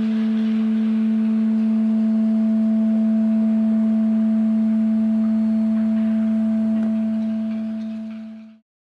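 Steady electronic sine-tone drone: one strong low tone with fainter higher tones above it, holding level and then fading out near the end.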